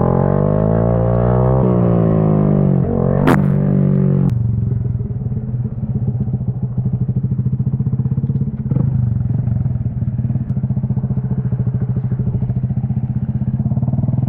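2022 Honda Grom's small single-cylinder engine revving up and down for about four seconds, with one sharp click a little past three seconds in, then dropping suddenly to a steady low engine speed that runs on.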